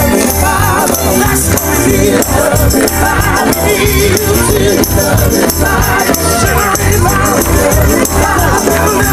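Loud live gospel music: a group of voices singing over a steady beat, with tambourine or other shaken percussion.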